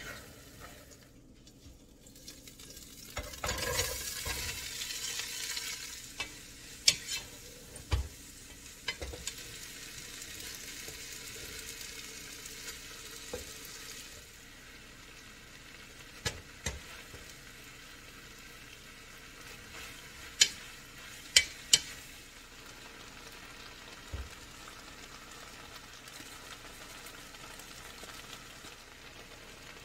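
Tomato meat sauce sizzling in a hot frying pan as it is stirred and scraped with a wooden spatula, with a louder stretch of sizzling a few seconds in. Sharp clicks of wooden utensils knocking against the pan and pot come now and then.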